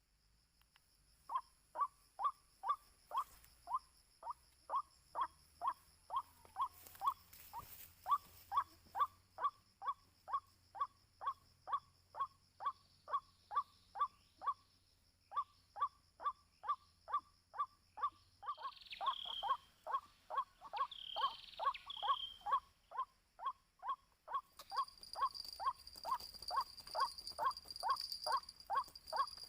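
White-breasted waterhen's repeated kwak call, short clipped notes at about two a second, kept up with only brief breaks, over a steady high drone of insects.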